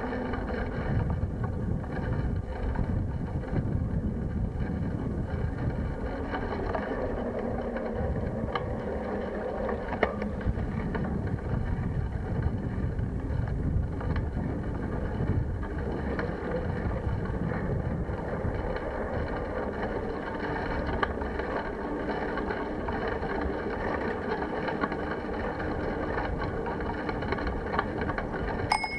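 Riding noise from a handlebar-mounted camera on a moving bicycle: a steady rumble of wind and tyres on the road, with a few short knocks as the bike goes over bumps. A bicycle bell rings at the very end.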